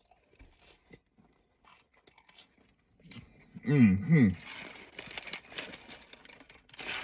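Close-up crunchy chewing of crispy French fries, starting about halfway through, just after a short two-part vocal sound of approval with falling pitch.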